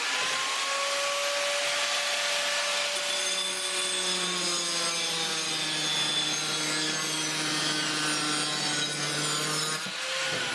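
Power tool cutting the end off a forged steel rail spike, running steadily with its motor pitch sliding and settling under load, then stopping at the end.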